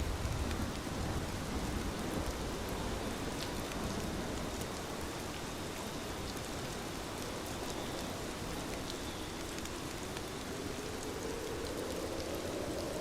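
Steady rain falling: a continuous even hiss with scattered light ticks of drops.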